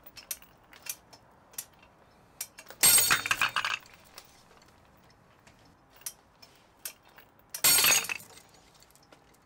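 Two 3D-printed PLA tensile test specimens snap under load, one about three seconds in and one near the end. Each break is followed by a brief clatter of the released steel hooks, shackle and chain. Scattered faint clicks come between the breaks.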